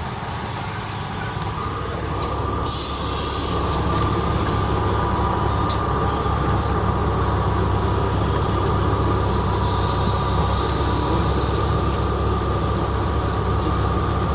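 Steady low rumble of a moving vehicle heard from inside the cabin, with a faint steady whine, growing louder over the first couple of seconds. There is a short hiss about three seconds in and a few light clicks.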